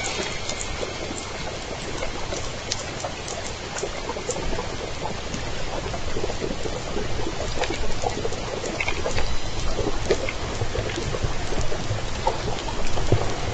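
Underwater noise on a hydrophone: a steady crackling hiss with scattered sharp clicks. Faint calls from Southern Resident killer whales (J pod) come in about two-thirds of the way through.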